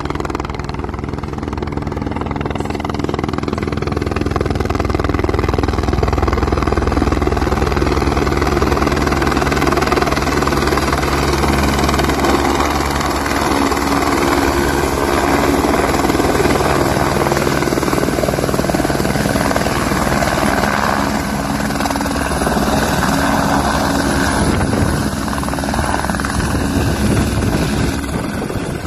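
Light skid-equipped helicopter approaching low and descending to land on snow, its rotor chopping steadily. It grows louder over the first few seconds as it comes close and eases slightly near the end as it settles.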